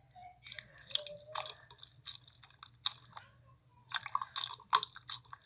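Hands pressing and kneading clear slime in a glass bowl: irregular wet clicks, squelches and small pops.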